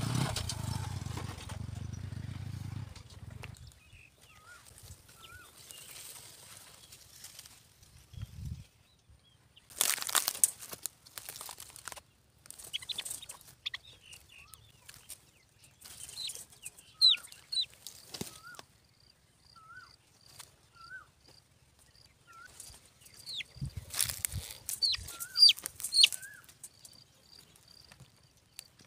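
A motorcycle engine fades away over the first few seconds. Then birds caught in a wire-mesh cage trap flap against the cage in loud bursts and give many short chirping calls.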